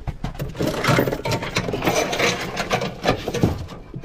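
Plastic wrapping crinkling and rustling, with irregular knocks and bumps against a wooden crate as packed parts are handled, over a low steady hum.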